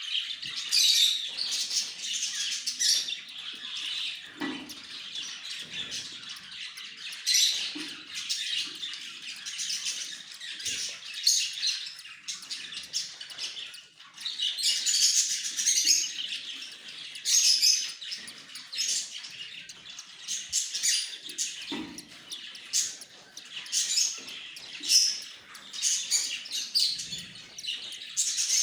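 Several pet love birds chirping and chattering continuously, many high calls overlapping, with a soft low knock now and then.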